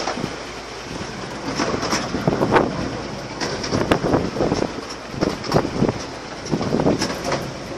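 Miniature railway carriage running along the 15-inch gauge track, its wheels clacking over rail joints in irregular clusters of knocks over a steady running rumble.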